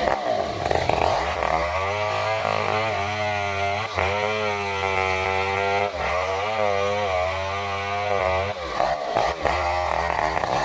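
Stihl 070 two-stroke chainsaw cutting lengthwise through a durian trunk, its engine speed repeatedly sagging under load and picking up again, with short dips about four and six seconds in and again near the end.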